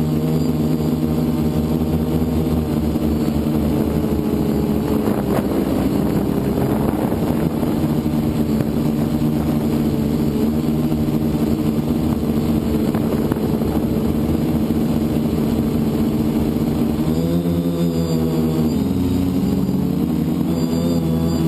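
Multirotor FPV drone's electric motors and propellers running with a steady droning hum, the pitch dipping and rising a few times near the end as the throttle changes.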